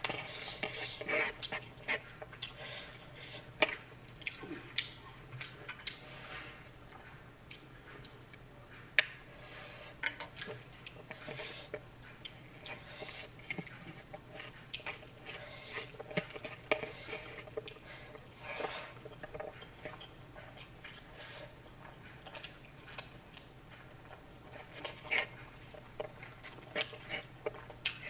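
Kitchen utensils clinking and tapping irregularly against dishes or cookware, with frequent small knocks.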